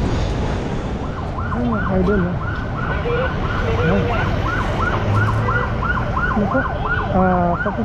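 Emergency-vehicle siren in fast yelp mode, its pitch sweeping up and down about three times a second, starting about a second in; near the end a steadier blaring tone sounds with it.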